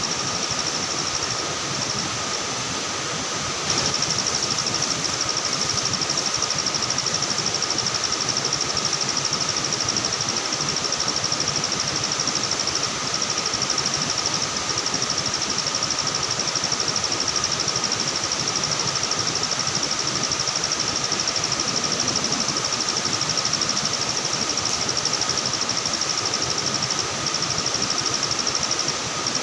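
Night insect chorus: a steady, high, fast-pulsing trill with a fainter lower steady tone, over a constant rushing noise. The high trill weakens between about one and four seconds in, then comes back louder.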